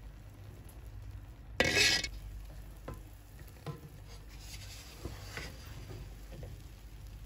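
A serving spoon scooping and turning cooked chicken pulao rice in a metal pot, with a loud half-second burst of spoon-on-pot noise about one and a half seconds in and a few light knocks after it.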